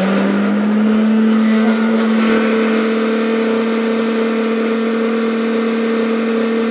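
Electric mixer grinder (mixie) motor running at full speed, grinding a dry roasted mix into powder. It spins up just at the start, then holds a loud, steady hum at one pitch.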